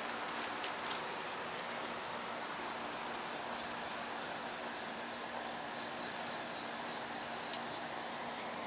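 A steady, high-pitched chorus of insects chirring, with the faint low hum of honey bees on an open hive frame beneath it.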